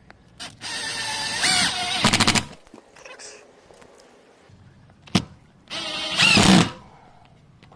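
Bosch GDR 18V-LI cordless impact driver driving self-tapping screws through a steel ladder bracket into a timber joist: two bursts of rapid hammering, the first about two seconds long and the second about a second, with a single click shortly before the second.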